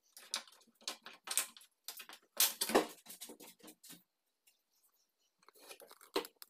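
Irregular rustling, clicking and light knocking, in a busy run over the first four seconds and a shorter one near the end, like close handling and movement noise.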